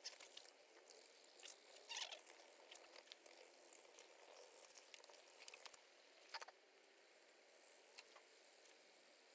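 Faint, quick scratching and ticking of a metal shedding blade raking through a black Labrador's coat, pulling out loose moulting undercoat, with the audio fast-forwarded. A few sharper scrapes stand out, the strongest about two seconds in and again around six seconds.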